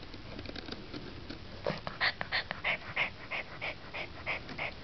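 Chow Chow puppy breathing fast in short, even puffs, about three a second, starting about a second and a half in.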